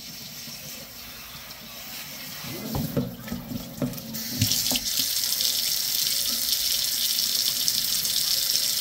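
Water running from a pull-down kitchen faucet sprayer onto hair and into a stainless steel sink, getting much louder about four seconds in. There are a few short knocks and splashes a little before that.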